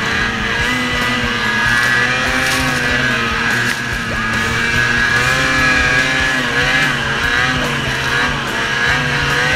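Lynx Boondocker 3700's 600 E-TEC two-stroke snowmobile engine running under way, its revs rising and falling, with music playing over it.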